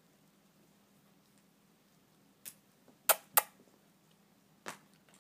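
Kissy noises made with the lips to call the puppies: four short, sharp smacks, one about halfway through, a quick pair just after, and a last one near the end.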